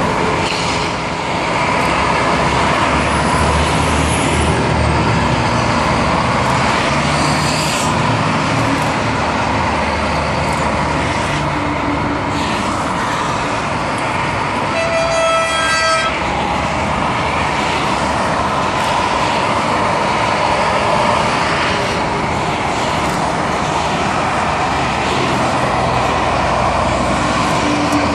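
Steady motorway traffic noise from a convoy of trucks passing below, with one truck horn blast lasting about a second about halfway through.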